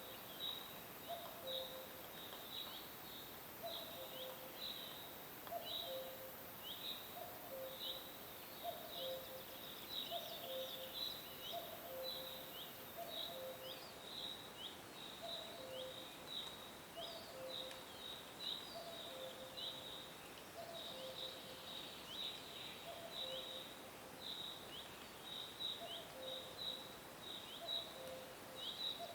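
Nature soundscape of animal calls: a dense run of short, high, falling chirps, with a low two-note call repeating about once a second.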